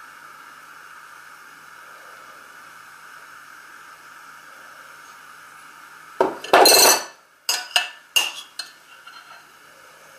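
Metal spoon scraping and knocking against glass for about a second, followed by four sharp clinks of the spoon tapping the glass, over a steady faint hiss.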